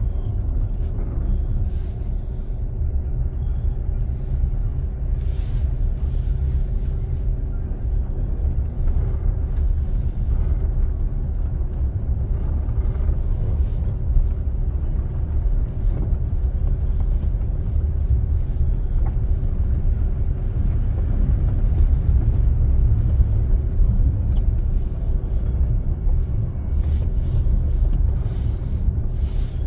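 Steady low rumble of a motor vehicle running, with a faint steady hum, without break or change.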